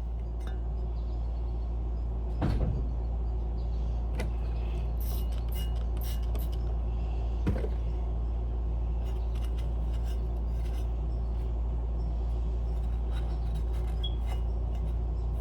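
Rag wiping and small knocks as the metal housing of a fire alarm chime is handled and cleaned: scratchy rubbing around the middle and two knocks, one about two and a half seconds in and one near halfway, over a steady low hum.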